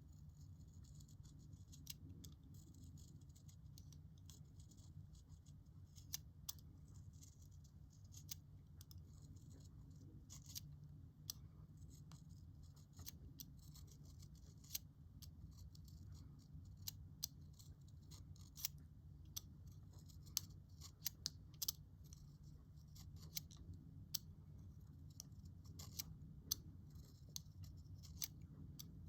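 Utility knife blade shaving wood from a pencil: faint, quick scraping strokes with many small sharp clicks at an irregular pace.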